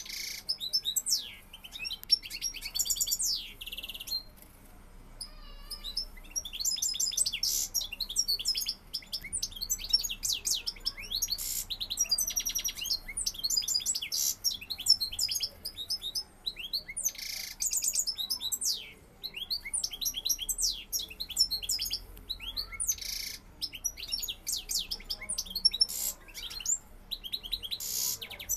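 Male European goldfinch singing its rapid twittering, chirping song in long runs: courtship song directed at the hen in the next cage. It falls quieter briefly about four to six seconds in.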